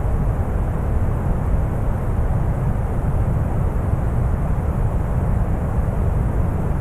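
Deep brown noise: a steady, even rumbling hiss with its weight in the low end and little treble, unchanging in level.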